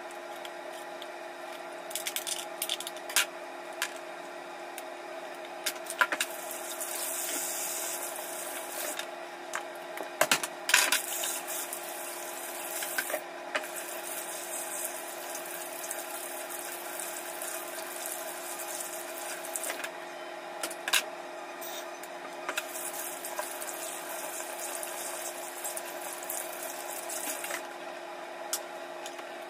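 Tap water running into a kitchen sink in stretches, with scattered sharp clicks and snips as raw prawns are cut with kitchen scissors and handled, over a steady background hum.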